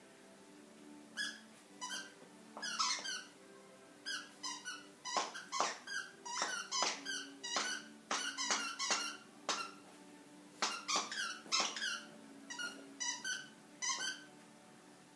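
A squeaky bow-tie dog toy being squeaked over and over by a wire-haired fox terrier. The squeaks come in quick runs, starting about a second in and stopping near the end.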